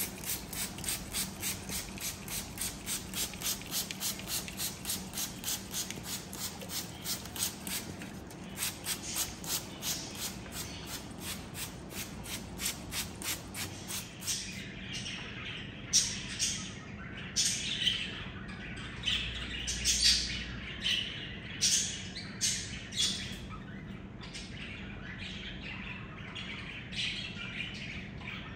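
Birds chirping: a fast, even run of high chirps, about three a second, through the first half, then louder, irregular squawking calls.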